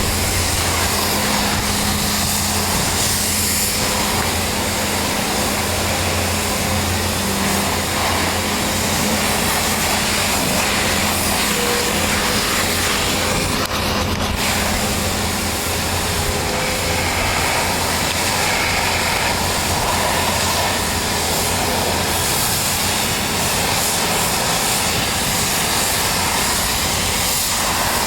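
Pressure washer running steadily: the hiss of the high-pressure water spray over a low, steady machine drone.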